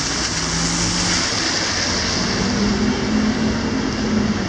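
Steady rain falling on a wet street, a continuous hiss, with a low engine hum from traffic underneath.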